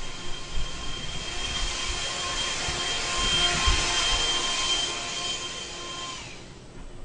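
An electric fan-driven motor, such as a vacuum cleaner's or a hair dryer's, running with a steady high whine. About six seconds in it is switched off, and its pitch falls as it winds down. A few low bumps come through while it runs.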